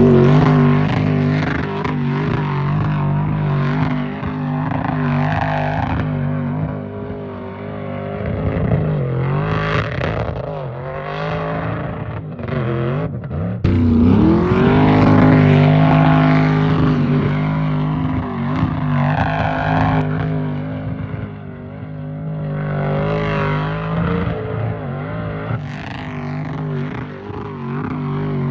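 Car engine working hard in sand during dune bashing, revving up and easing off over and over, with a short drop in revs about halfway through.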